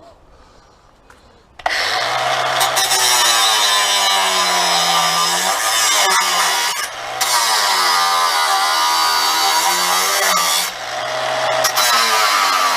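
Stanley FatMax 18 V cordless angle grinder starting up about two seconds in and cutting into 3 mm mild steel angle. The motor's pitch sags and recovers under load, and twice the cutting noise briefly eases while the motor keeps spinning.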